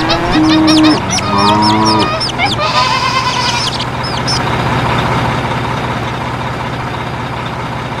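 Birds chirping, with two held honking calls in the first two seconds, over a steady low hum; the chirping stops about halfway through.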